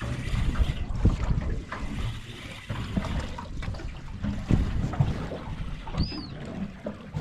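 Wind buffeting the microphone and water lapping against a small boat's hull, with scattered light knocks and a short high chirp about six seconds in.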